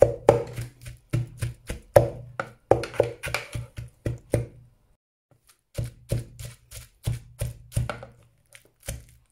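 Pestle pounding garlic and shallots in a mortar: steady thuds about two to three a second, with a short break about halfway through.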